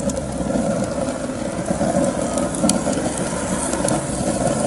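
Homemade rocket stove burning on its first test fire, its draft pulling the flame into the feed opening with a steady, continuous rumble.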